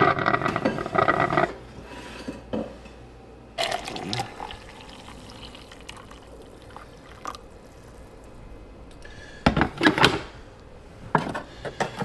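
Hot coffee poured from a glass drip-coffee-maker carafe into a stainless steel tumbler, a steady low pouring sound, followed near the end by sharp knocks and clinks as the glass carafe is set back down. The first second and a half holds a louder sound made of several steady tones that stops suddenly.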